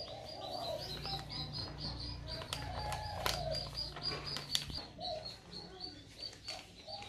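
Birds cooing, with a rapid run of high chirps and a few sharp clicks.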